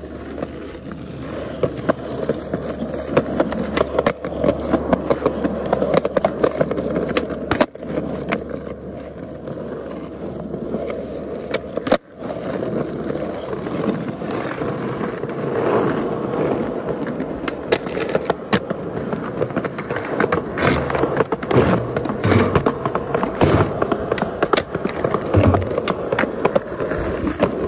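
Skateboard wheels rolling on asphalt and concrete, a steady rumble. Sharp clacks of the board popping and landing tricks run through it, and the sound breaks off briefly twice, about eight and twelve seconds in.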